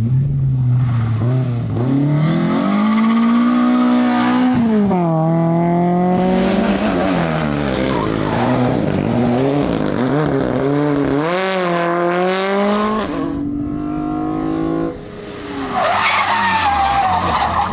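Rally cars at full throttle on a special stage, the engines revving up and dropping back through gear changes, with tyres skidding on the surface. One car fades about fifteen seconds in and another comes through loud.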